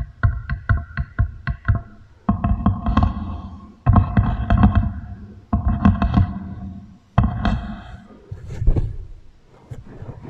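Beeswax wrap being tapped and crinkled against a microphone and wooden table, fed through a heavy echo effect that gives it a ringing, pitched tone. Quick taps at about four or five a second open, then four crinkly bursts follow about a second and a half apart, and a few scattered taps come near the end.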